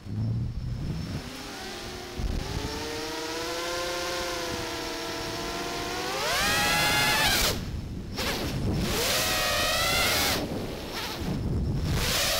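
X8 FPV octocopter's eight brushless motors and propellers whining, the pitch following the throttle. A wavering hum climbs steeply about six seconds in to its loudest and cuts out briefly just after, then swells and drops away again twice.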